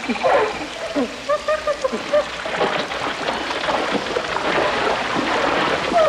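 Jungle ambience from a nature-sounds recording, with animal calls over a steady rushing background. A falling call comes just at the start, then a run of about five short repeated notes a second or so in, and the second half fills with dense chattering calls.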